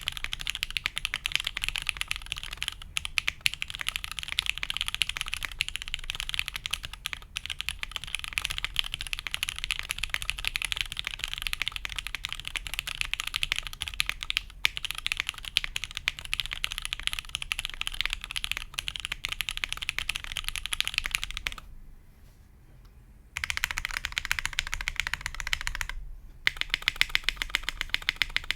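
Fast, continuous typing on a GHS.RAR custom mechanical keyboard with lubed SP-Star Meteor White switches, a G10 plate, no dampening and GMK keycaps. The keystrokes are dense and clicky, with one break of about a second and a half some 22 seconds in and a brief dip a few seconds later.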